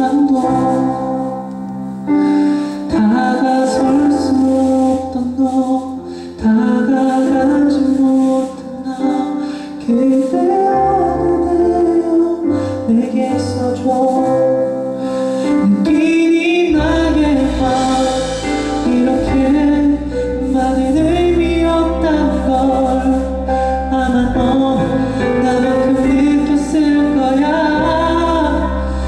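Male vocalist singing a Korean ballad live over band accompaniment. A deep bass comes in about halfway through.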